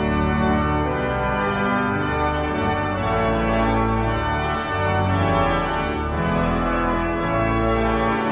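Pipe organ playing sustained full chords over a deep bass, the harmony changing every second or so.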